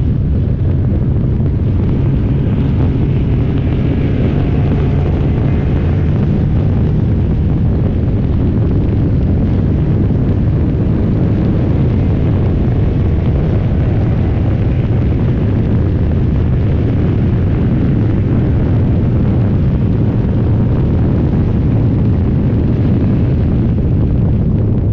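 Historic race car's engine running hard at racing speed, heard from the open cockpit as a steady, loud, low rumble mixed with heavy wind buffeting on the microphone.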